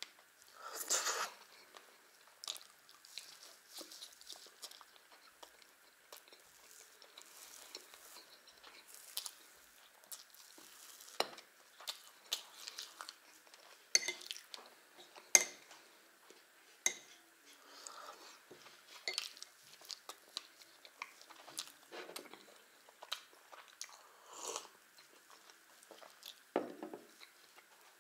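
A person chewing and eating blini with strawberry jam close to the microphone: wet mouth and chewing sounds with many scattered sharp clicks, some of them a metal spoon tapping the jam saucer.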